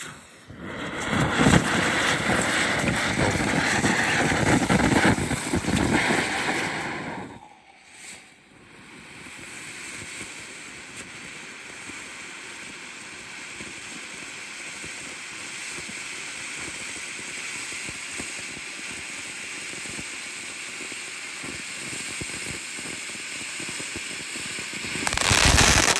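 World Class 'All Hat, No Cattle' ground fountain firework spraying sparks with a steady hiss. It is loud for the first seven seconds or so, drops out for a moment, then hisses more quietly, and surges louder again near the end.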